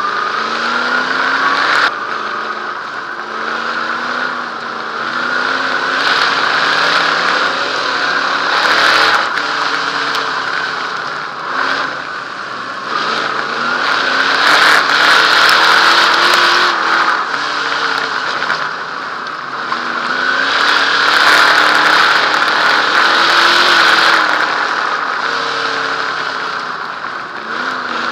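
Dirt modified race car's V8 engine at racing speed, heard from inside the car. The pitch climbs and drops back over and over as the car accelerates down the straights and lifts into the turns.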